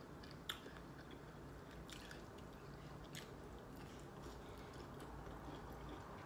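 Faint biting and chewing of asparagus spears: soft mouth sounds with a few scattered clicks.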